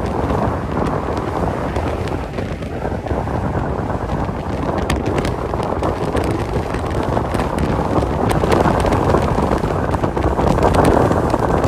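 Steady road and engine noise from a truck driving at highway speed, with a few faint clicks in the middle.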